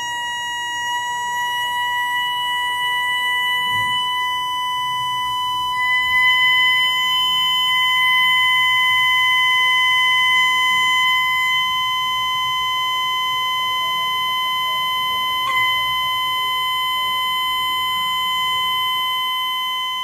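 A loudspeaker driven by a signal generator plays a steady pure tone near 1 kHz into a Kundt's tube. The pitch creeps slightly upward toward the tube's resonance, where the standing wave heaps the cork dust into ridges. A brief click comes about three-quarters of the way through.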